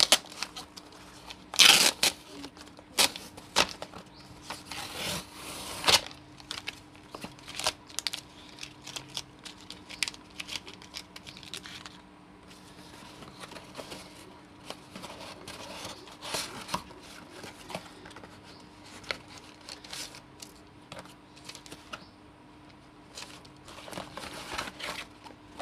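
Cardboard shipping box being torn open by hand: sharp ripping of the tear strip and cardboard, loudest in the first few seconds, then fainter crackling and rustling of cardboard and paper as the box is handled and the paper slip is pulled out.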